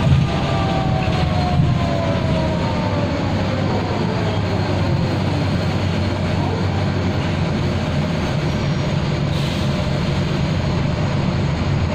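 Mercedes-Benz O405G articulated bus heard from inside the cabin: its ZF automatic gearbox howls, a whine that falls steadily in pitch over the first five seconds or so. Underneath is a steady low drone of engine and road noise.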